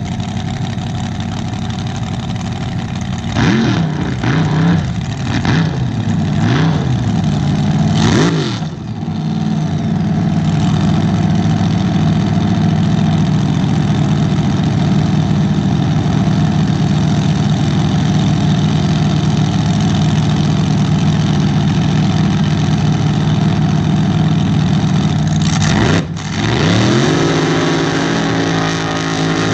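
Racing boat engine running loud and steady, revved up and down several times a few seconds in as the boats get ready to start a race, then dipping and rising again near the end as a boat speeds off.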